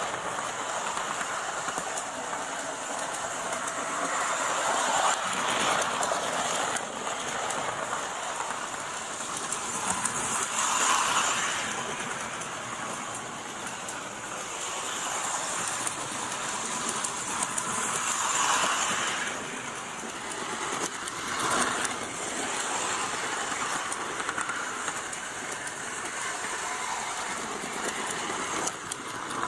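Lionel Laser Train O27 model train running around an oval of track: its electric motor hums and its wheels clatter over the rails and joints. The sound swells and fades several times as the train passes close by.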